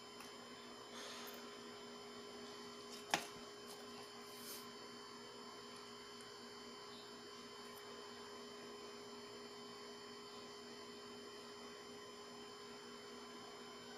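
Quiet, steady electrical hum made of several constant faint tones. About three seconds in there is one sharp click as the sunglasses are handled, with faint rustling shortly before and after it.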